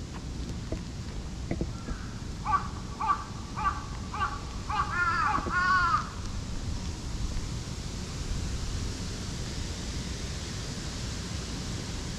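A run of about six evenly spaced animal calls, roughly half a second apart. The first are short and clipped, and the last two are longer and arch up and down in pitch.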